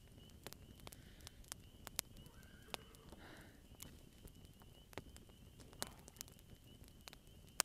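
Campfire crackling: quiet, irregular pops and snaps, over a faint steady high tone.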